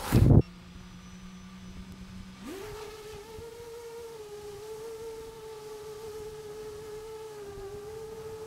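Brushless motors of a 7-inch FPV quadcopter, recorded by a camera on the drone: after a brief rush of noise at the very start, a low steady hum, then about two and a half seconds in the pitch sweeps up into a higher steady whine with slight wavers as the drone throttles up and flies.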